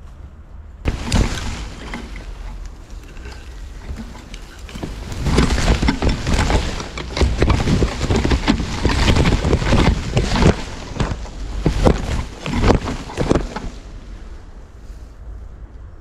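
Wind rushing and buffeting against the microphone of a fast-flying FPV drone's camera, in uneven gusts with a heavy low rumble. It starts about a second in, is strongest through the middle and eases near the end.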